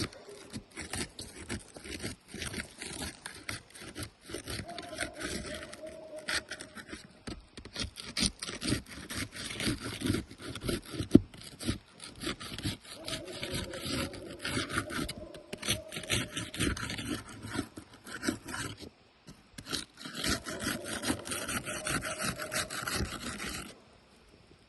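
Roof shingle seals being broken apart: a tool scraping and rasping under the shingle tabs in quick, irregular strokes. There is a short pause about three-quarters through, and the scraping stops shortly before the end.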